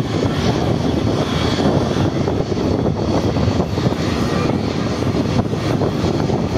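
Jet airliner engines running, a steady loud rumble and rush of noise.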